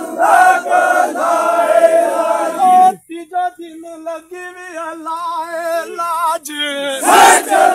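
Men's call-and-response hauling chant: one male voice sings long, wavering lines while the crowd carries a heavy log, and the crowd shouts back together near the end.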